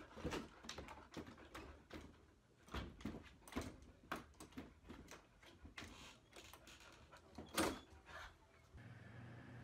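A dog pawing and scratching at a lever door handle, rattling the handle and door in a string of clicks and knocks. The loudest clack comes about seven and a half seconds in, as the latch gives and the door swings open.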